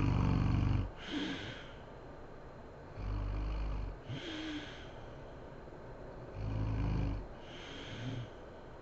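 A sleeping woman snoring heavily. There are three low, rattling snores about three seconds apart, each followed by a softer, breathy breath.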